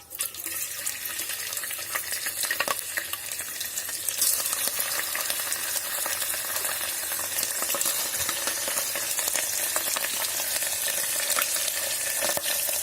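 Paneer cubes frying in hot oil: a sizzle with constant crackling that starts suddenly as the cubes go into the oil.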